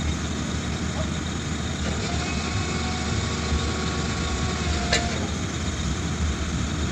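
Komatsu PC 200 excavator's diesel engine running steadily, with a single sharp click about five seconds in.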